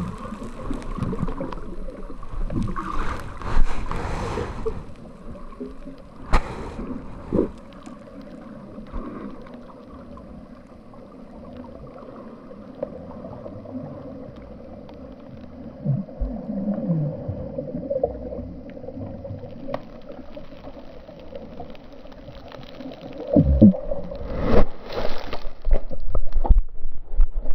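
Muffled underwater sound through a GoPro's waterproof housing: water gurgling around the camera over a steady drone, with scattered dull knocks against the housing and a louder run of knocks and rumbling near the end.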